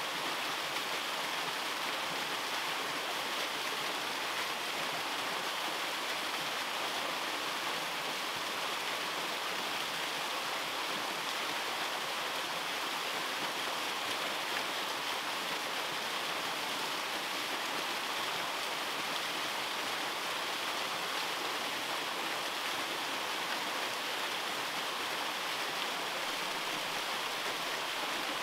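Small waterfall splashing into a rocky pool: a steady, even rush of falling water.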